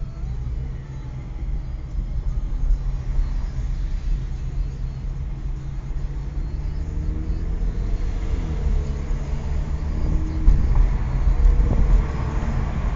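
Car engine and road noise heard from inside the cabin, a steady low rumble whose engine note rises a little past halfway as the car gathers speed.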